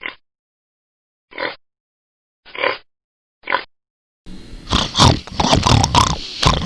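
Pig grunting: four short single grunts about a second apart, then from about four seconds in a louder, continuous run of pig grunts and calls.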